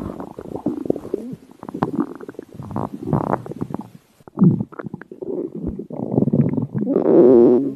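Stomach growling and gurgling in irregular rumbles. There is a brief pause about four seconds in, and a long, louder, wavering growl near the end.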